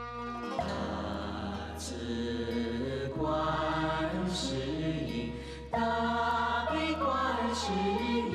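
Slow Buddhist devotional song to Guanyin: chanted singing over sustained bass chords that change every few seconds.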